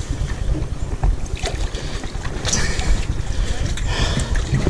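Wind buffeting the microphone in a gusty low rumble, with faint water moving around the submerged jetty steps.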